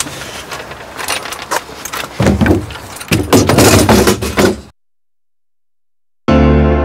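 Loud clattering and rustling noise with many sharp clicks, heaviest in two stretches after about two seconds, cutting off abruptly. After a second and a half of silence, piano music begins near the end.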